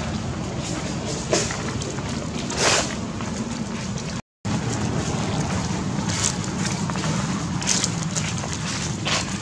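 Steady low outdoor rumble with five brief scratchy rustles spread through it. The sound drops out completely for a moment about four seconds in.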